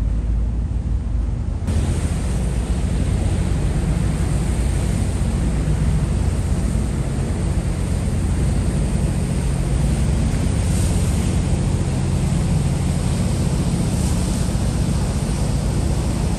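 Wind buffeting the microphone on a moving harbour ferry, over the low steady rumble of the boat's engine and rushing water. The windy hiss gets suddenly stronger about two seconds in.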